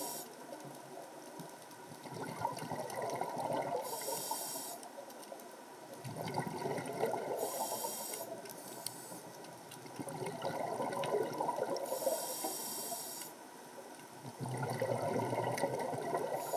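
Scuba diver breathing through a regulator: a hiss on each inhale about every four seconds, between longer bursts of bubbling as the exhaled air streams out.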